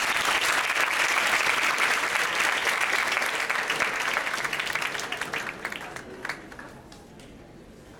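Audience applauding: many hands clapping in a dense patter that dies away about six seconds in.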